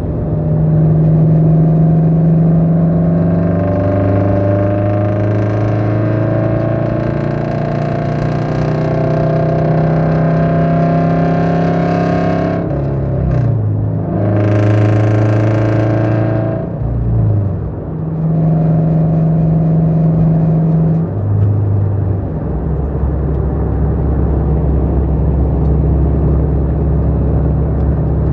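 Toyota GR86's 2.4-litre flat-four running through a catless, resonator-less JDL unequal-length header and HKS single exhaust, with the uneven boxer rumble such headers give; really loud. The pitch climbs slowly for about ten seconds as it accelerates, drops twice around the middle, then holds a steady lower note.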